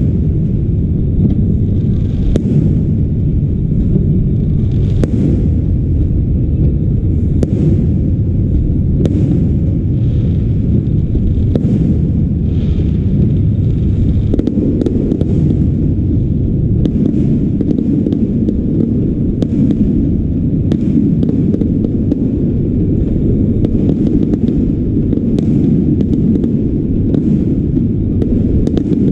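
Fireworks display: aerial shells bursting in an irregular string of bangs and crackles over a constant heavy low rumble, the bursts coming more thickly in the second half.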